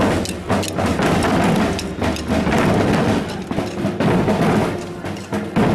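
Marching band drums: snare drums and bass drums beating a quick, steady march rhythm.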